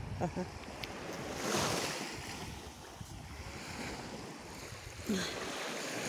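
Sea waves washing onto a sandy shore, a steady hiss of surf that swells about a second and a half in and again near the end, with some wind on the microphone.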